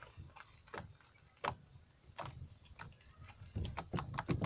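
Slime being squeezed and kneaded by hand, giving off irregular wet clicks and pops that come thick and fast from about three and a half seconds in.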